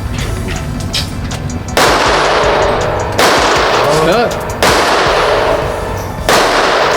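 Four pistol shots from a Glock Gen 5 MOS fitted with a red dot, about a second and a half apart, each ringing out for a second or so, with background music underneath.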